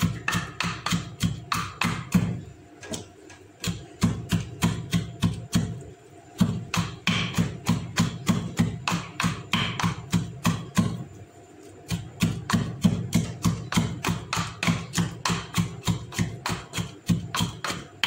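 Garlic being pounded with a pestle in a mortar, about four or five quick strokes a second in runs broken by brief pauses, to crush it very fine.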